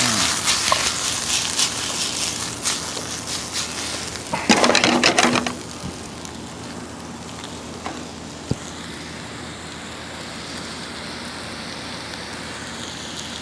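Chopped bell peppers, onion, tomato and cilantro sizzling in hot oil in a nonstick wok, the wet vegetables crackling and popping. The crackle is busy and loud at first, with a louder surge about four and a half seconds in. About six seconds in it settles to a quieter, steady sizzle, with a single click near the middle.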